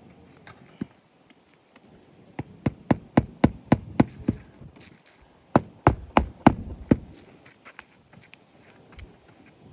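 Hammer driving roofing nails into asphalt shingles on a roof: two quick runs of sharp blows, about four a second, with a short pause between them.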